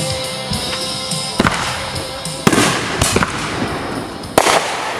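Fireworks going off: a run of loud, sharp bangs about a second and a half in, at two and a half, around three and near the end, each followed by a crackling tail.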